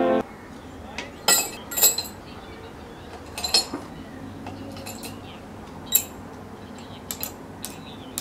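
Metal rod and tongs clinking and scraping against the crucible of an electric melting furnace, in several short, sharp, irregular clinks, the loudest about two seconds in and again near six seconds in.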